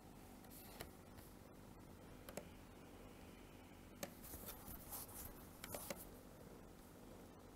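Faint computer mouse clicks, a few single clicks and then a short flurry with light rustling about four to six seconds in, over quiet room hiss.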